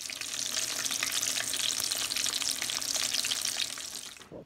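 Flour-breaded chicken legs deep-frying in hot vegetable oil in a pan: a steady, dense sizzle with fine crackling that cuts off near the end.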